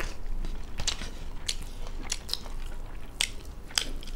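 Close-miked chewing of a mouthful of rice and fried chicken gizzard, with half a dozen sharp, wet mouth smacks at irregular intervals.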